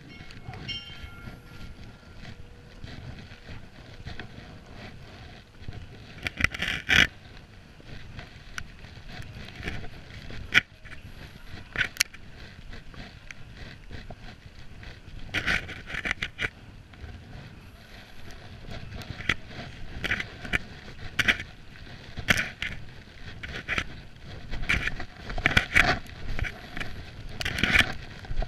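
Footsteps crunching and scraping on wet, slushy paving close to the microphone, irregular and coming in clusters, over a steady low outdoor background.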